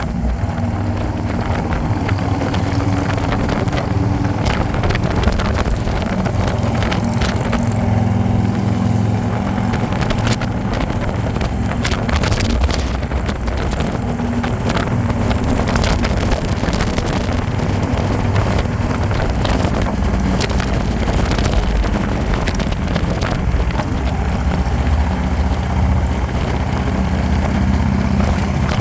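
Harley-Davidson motorcycle's V-twin engine running steadily at riding speed, with wind buffeting the microphone.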